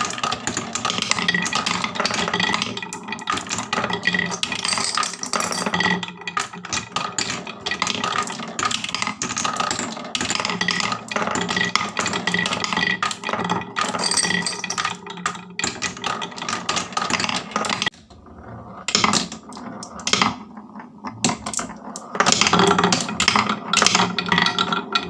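Many marbles rolling and clattering down a wooden marble run: a dense stream of clicks and rattles that thins out for a few seconds about three-quarters through, then picks up again.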